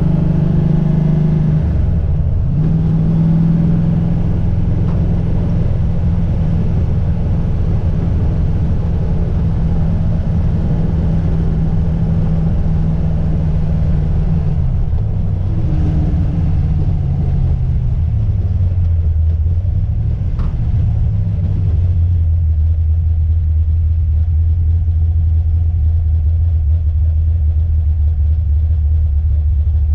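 Car driving, heard from inside the cabin: a steady low engine and road drone whose pitch drops about halfway through and then holds lower. A faint click sounds about two-thirds of the way through.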